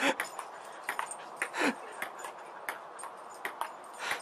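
Table-tennis ball clicking sharply as it bounces on the table and is hit back and forth in a rally. Two short louder sounds that fall in pitch come near the start and about a second and a half in, with a hard click just after four seconds.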